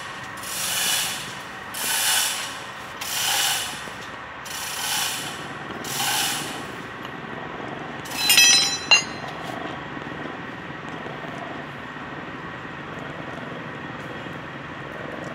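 Hydraulic pump of a 1961 Wakayama fabric calender machine, driven by its camshaft, running with a hiss that pulses about once every 1.3 seconds for the first six seconds. About eight seconds in there is a short squeal and a sharp click, and then a steady low mechanical running noise.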